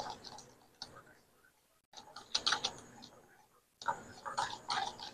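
Wire whisk stirring dry flour in a stainless steel bowl, its wires ticking and scraping faintly against the metal in short irregular runs.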